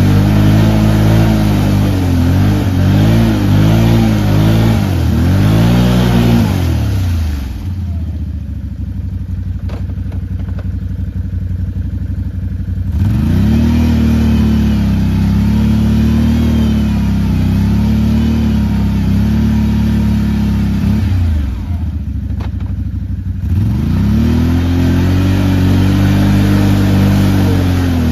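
Can-Am Outlander ATV engine revving in repeated surges, the pitch rising and falling. It drops back to a low idle twice, for about five seconds about a third of the way in and briefly past the three-quarter mark, then revs up again each time.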